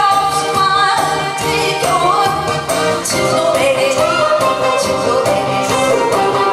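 Live singing of an upbeat Korean trot song over a loud backing track with a steady beat, the vocal line sung into a microphone through the hall's PA.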